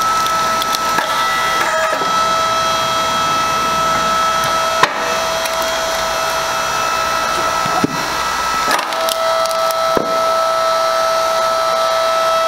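Electric hydraulic log splitter splitting a log: the motor and pump run with a steady whine while the wood cracks and splinters sharply three times, about 5, 8 and 10 seconds in. The whine changes pitch just before the last crack.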